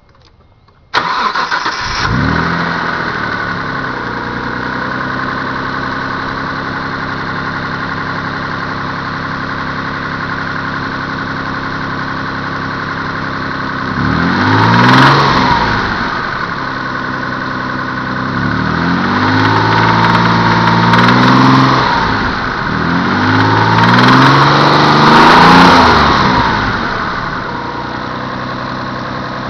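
Mitsubishi 3000GT VR-4's twin-turbo V6 starting about a second in and idling, then revved three times, each rev rising and falling in pitch. The owner hears a knock when it is revved, which seems to come from the front cylinder head and which he fears is a spun bearing.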